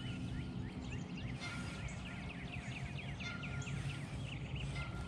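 Birds chirping: many quick, repeated high chirps over a steady low hum.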